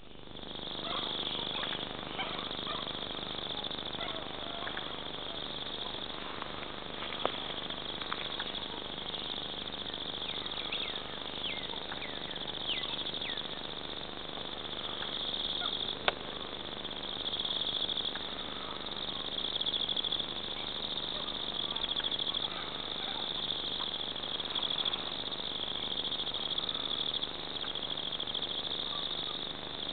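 Steady, high-pitched chorus of insects trilling, with scattered short chirps over it. A sharp click about seven seconds in and a louder one about sixteen seconds in.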